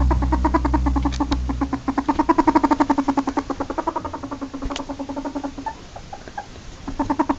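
Ferret dooking: a rapid run of soft, clucking chuckles, about ten a second. It falters and stops for a moment, then starts again near the end. A low rumble underneath fades out in the first two seconds.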